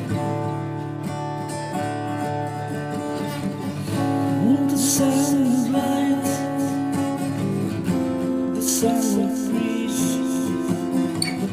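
Martin D-13E acoustic guitar strummed and picked steadily. A voice joins with wordless singing about four seconds in and again near nine seconds.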